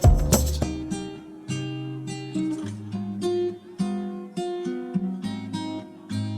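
Background music: an acoustic guitar picking out single notes, after a couple of beats that stop about half a second in.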